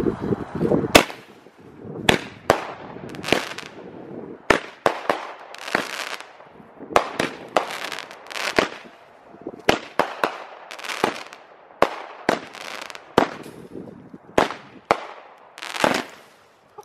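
A 200-gram consumer firework cake of smoke-trail shots, left unsecured, firing a long series of sharp pops, roughly one every half second, each trailed by a short hiss.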